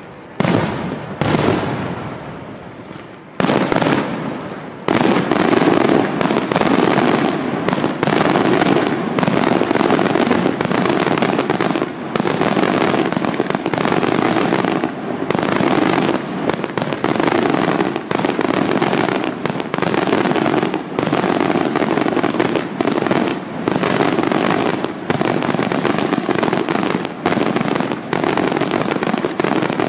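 Aerial firework shells bursting. There are a few separate bangs in the first five seconds, then a dense, continuous barrage of rapid bursts.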